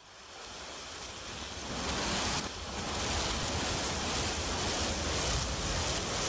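Rumble of a demolished building collapsing in a cloud of dust and debris, played backwards. It swells up from quiet over about the first two seconds, then holds a steady, dense rumble with a faint regular pulsing in the hiss.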